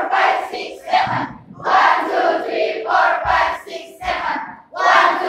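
A large group of students chanting and shouting together in unison, in loud bursts of about a second with short pauses between, and a couple of low thumps partway through.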